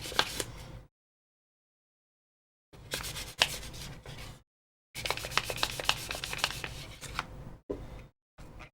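Sandpaper rubbing back and forth on the hard plastic of an AirPods Pro case, a scratchy rasp full of small clicks. It comes in three spells with dead silence between them: under a second at the start, a short spell about three seconds in, and a longer one from about five seconds in.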